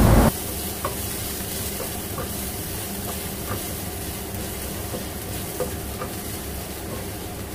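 Minced garlic and ginger sizzling in oil in a nonstick pan as they are stir-fried until fragrant. The sizzle is steady, with a spatula stirring and a few light clicks scattered through.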